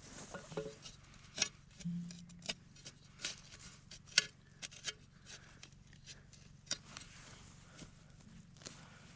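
Digging for a metal-detector target: scattered sharp clicks, knocks and scrapes of a digging tool working the soil, a handful of them loud, over a faint steady low hum.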